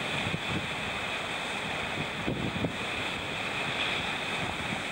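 Ocean surf washing and breaking against a rock ledge in a steady wash of noise, with wind buffeting the microphone.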